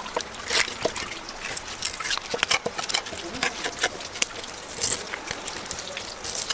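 Kitchen knife scraping and tapping on a wet wooden cutting board while a raw fish fillet is skinned and cut, with wet slaps of the fish on the board. The sounds come as irregular clicks and scrapes.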